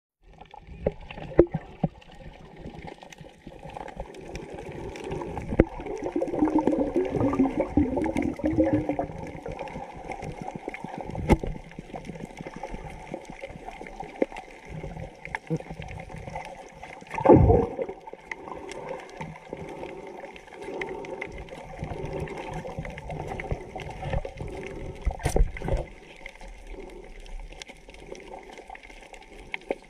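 Water gurgling and sloshing around an underwater camera, with bubbly movement and scattered small clicks and knocks, and one louder burst a little past halfway.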